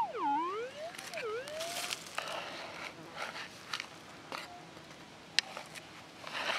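Metal detector's target tone swooping down and back up twice as a scoop of dug soil is passed over its coil, signalling metal in the soil. It is followed by soft scraping and rattling of dirt and small stones in a plastic scoop, with one sharp click near the end.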